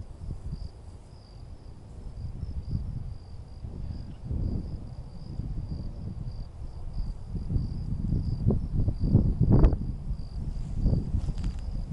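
A steady, high-pitched insect trill with a rapid pulse runs under low rustling and thuds from footsteps through grass. The footsteps grow louder in the second half.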